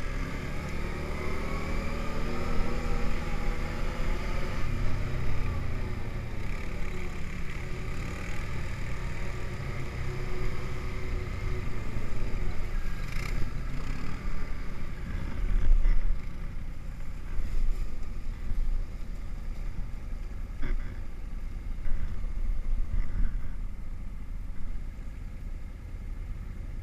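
ATV engine running while riding a snowy trail, its pitch rising and falling with the throttle in the first half, over a heavy low rumble. A few short knocks come through in the second half.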